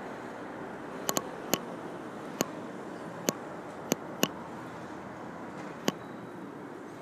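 Steady city street background noise with about eight sharp, irregular clicks or taps scattered through it.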